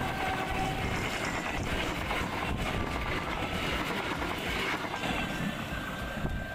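Several battery-powered toy trains running on plastic track at once: a continuous whir of small motors and rattle of wheels, with brief high tones now and then.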